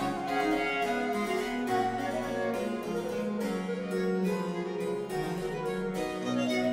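Baroque chamber ensemble playing on period instruments, the harpsichord's plucked chords prominent, with traverso flute, viola da gamba and lute.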